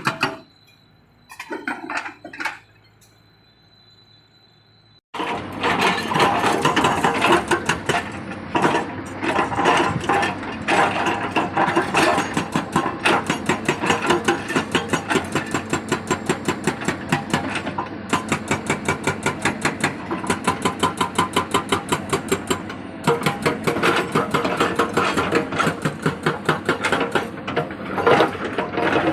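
Excavator-mounted hydraulic breaker hammering, a fast, even rattle of many blows a second. It starts abruptly about five seconds in and stops briefly twice along the way.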